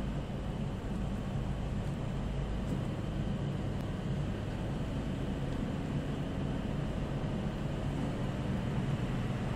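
A car driving along a street, heard from inside the cabin: a steady low rumble of engine and tyre noise.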